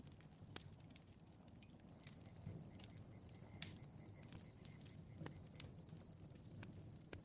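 Campfire crackling faintly: sparse sharp pops and snaps over a low, even background, with a broken high-pitched trill from about two seconds in.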